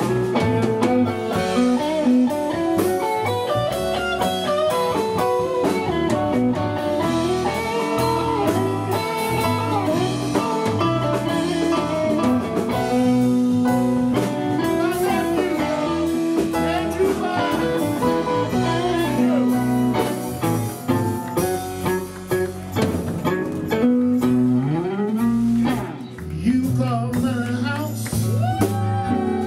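Live blues band playing, with guitar lead lines and bent notes over the band.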